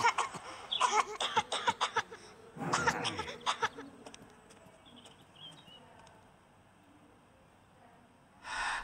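A young girl's coughing and breathy vocal sounds in the first few seconds, the loudest fit about three seconds in. Then quiet, with a short sharp breath near the end.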